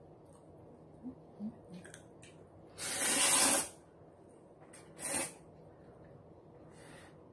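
A man slurping noodles from a bowl: one long slurp about three seconds in and a shorter one about two seconds later, with a few faint clicks before them.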